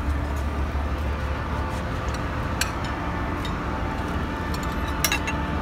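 Steady low drone of a ship's running machinery, with a few light clicks about halfway through and again near the end.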